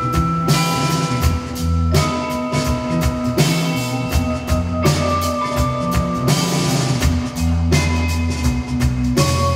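Live instrumental music from a small ensemble: a drum kit keeps a beat under a steady bass line, with long held melody notes that change every second or two.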